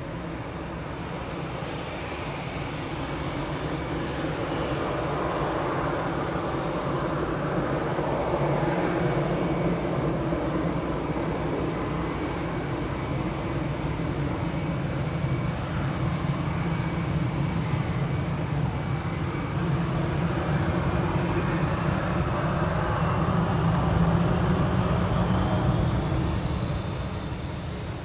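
Airbus A319 jet engines running at takeoff power, a loud steady rush that builds over the first several seconds and eases off near the end.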